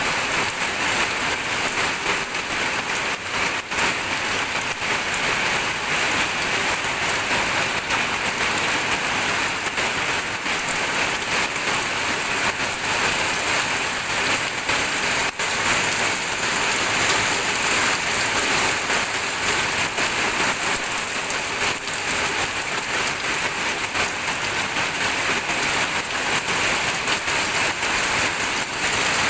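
Steady rain falling on surfaces, an even dense hiss with scattered drop ticks.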